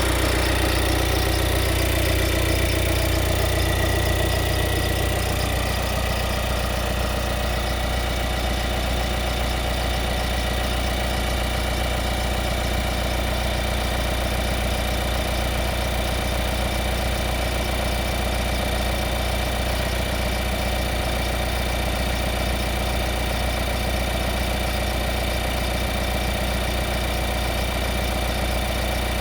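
Skoda Octavia IV with its engine running steadily at idle: a constant low hum with faint steady whines above it. About five seconds in, a higher tone stops and the sound drops slightly. This is the odd noise the owner is investigating.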